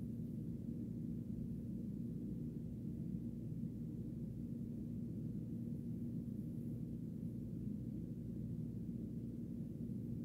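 Steady low rumble with a constant low hum, unchanging throughout and without any distinct knocks or calls.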